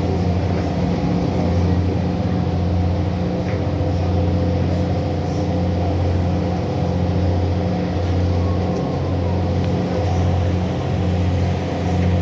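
A boat's engine running steadily with a low hum that swells and dips every second or so.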